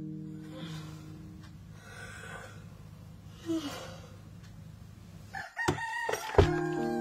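A rooster crows once, about five and a half seconds in, a short call that bends in pitch. Background guitar music: a chord dies away at the start and a new chord is strummed right after the crow.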